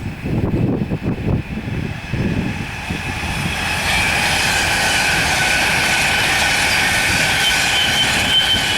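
Virgin Trains Class 390 Pendolino electric train pulling into the platform: a low rumble of wheels on rail, then from about halfway in a steady, several-toned high squeal from the brakes and wheels as it slows to a stop.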